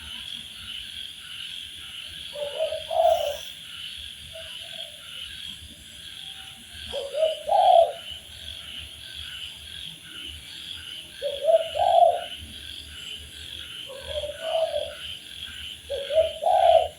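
Spotted dove (tekukur) cooing: five short phrases of low coos, about one every four seconds. Under them is a steady, high-pitched pulsing chirr.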